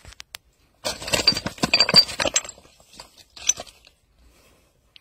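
A large freshly caught fish thrashing in a woven landing net on stony ground: a loud flurry of slaps and knocks for about a second and a half, then a few scattered knocks as it settles.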